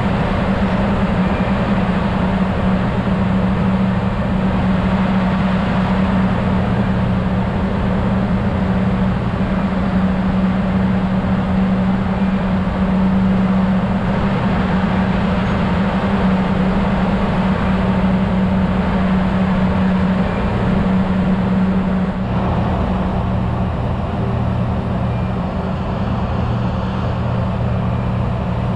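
Engine machinery running with a steady low drone and constant hum over a wash of noise; the hum changes slightly about three-quarters of the way through.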